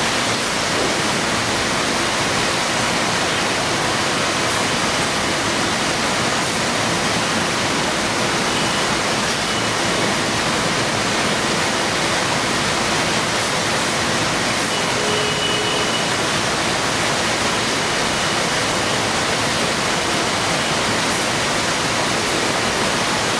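Steady, even machinery noise of a working box-packing line with conveyors and an overhead air-cushion system. A faint short tone sounds about fifteen seconds in.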